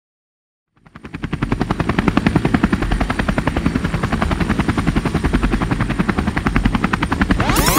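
An engine running with a rapid, even chop and a faint high whine, fading in about a second in. Near the end a loud sweeping sound of rising and falling pitches comes in over it.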